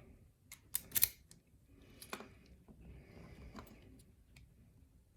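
Scattered small metallic clicks and taps from a lock and its tools being handled, with the loudest cluster about a second in and fainter handling noise between.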